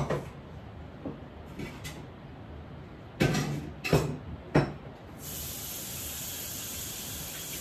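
A few sharp knocks, then a tap turned on about five seconds in, water running steadily into a sink.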